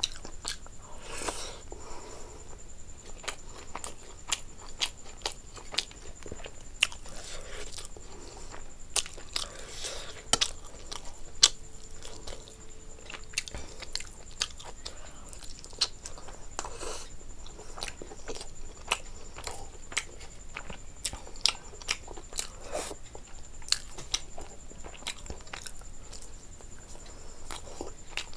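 Close-miked chewing and biting of food, with frequent sharp, crisp crunches and wet mouth sounds throughout.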